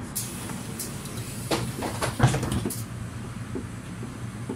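Interior of a moving city bus: a steady low engine and road rumble, with a cluster of sharp knocks and rattles from fittings about one and a half to three seconds in, the loudest a single thump a little past two seconds.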